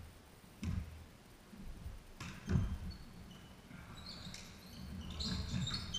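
A volleyball bounced on a wooden sports-hall floor: two dull thumps about two seconds apart, the second the louder. Near the end come short high squeaks of sports shoes on the court.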